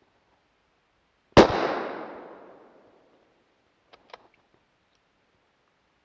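A single hunting-rifle shot about a second and a half in, its report dying away through the bush over the next second and a half. A few faint clicks follow about two and a half seconds later.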